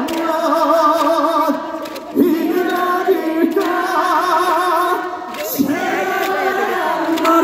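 A man singing a trot song unaccompanied through the PA, with the crowd singing along. There are no instruments, only voices, with wavering held notes.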